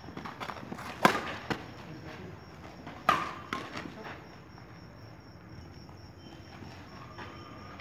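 Badminton rackets striking a shuttlecock during a doubles rally: sharp hits, the loudest about a second in and about three seconds in, each followed by a fainter click.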